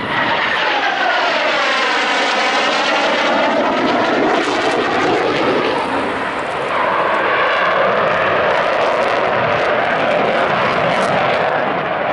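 F-16 fighter jet's engine roaring loud as the jet makes a close low pass. Over the first few seconds a whooshing sweep runs through the roar, falling and then rising again, before it settles into a steady, heavy roar.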